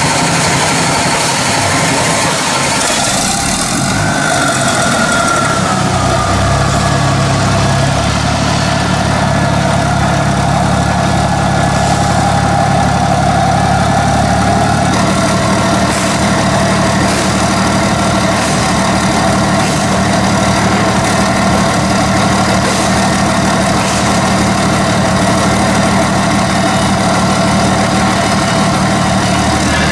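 Gas-fuelled generator set engine coming up to speed about five seconds in, then running steadily, over loud machinery noise that is already there at the start.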